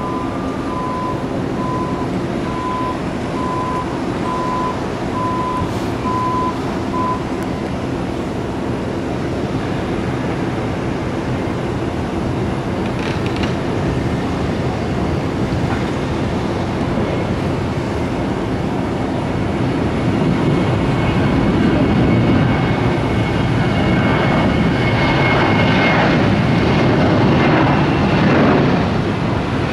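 Boeing 737-700's twin jet engines spooling up for the takeoff roll, a steady rumble that grows louder about two-thirds of the way in as the airliner speeds down the runway.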